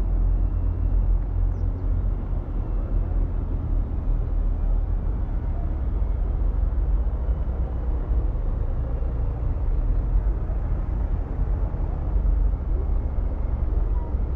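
Steady low rumble of a car driving slowly along a town street: engine and road noise.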